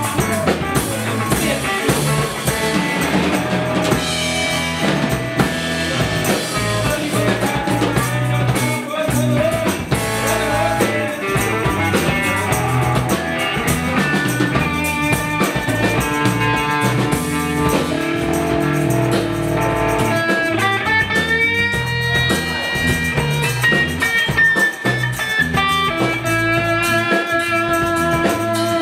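Blues-rock band playing: guitar over a drum kit, with long sustained guitar notes through the second half and one note sliding up.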